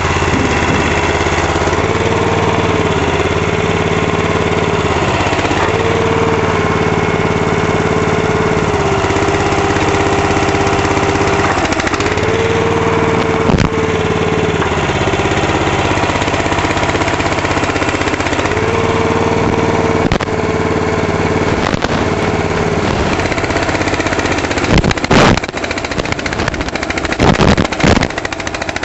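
Small engine of a Burro walkie forklift running steadily, its speed dipping and picking up again several times. A few sharp knocks come near the end.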